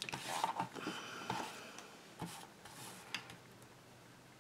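Light rustling and a few soft clicks as pieces of card stock are slid and squared on a paper trimmer, fading to near quiet in the last second or so.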